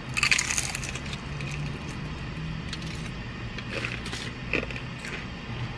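Two people biting into crispy birria taco shells: a loud crunch in the first second, then a few shorter crunches and rustles while chewing. A steady low hum from the car runs underneath.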